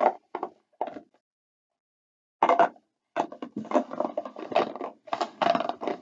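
Plastic stacking-cup boxes being handled and shuffled on a tabletop: three short knocks, then from about two and a half seconds in a dense run of clattering and rubbing handling noise.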